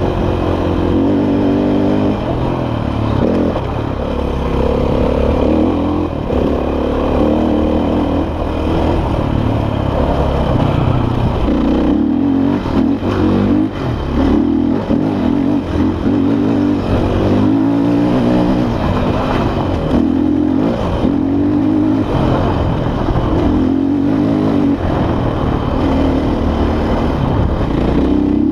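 KTM dirt bike engine revving up and down as it is ridden over a rough trail, its pitch rising and falling again and again with throttle and gear changes. A run of knocks and clatter comes about halfway through.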